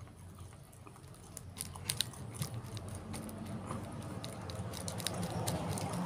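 Close-up chewing and mouth clicks of a person eating boiled unripe banana. In the second half a steady low hum grows louder beneath it.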